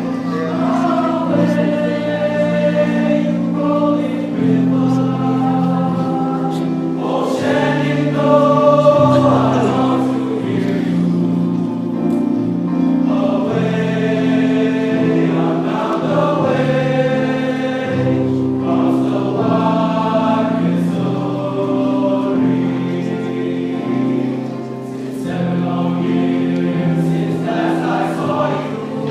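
A choir singing in harmony, holding chords that change every second or two.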